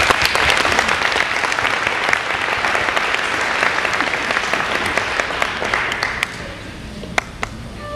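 Audience applauding, a dense patter of many hands clapping that dies away about six seconds in, leaving a few last scattered claps near the end.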